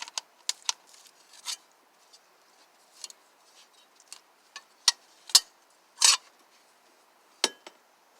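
Scattered sharp clicks and clacks of hand tools and parts being handled while a car door speaker is worked on, the loudest knocks about five and six seconds in.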